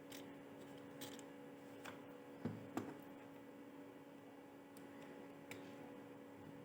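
Faint scattered clicks and knocks, the two loudest close together near the middle, over a steady low hum.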